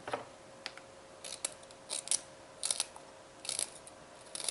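Kitchen scissors snipping broccoli into a bowl: a series of short, crisp snips, some in quick pairs, about one every three-quarters of a second.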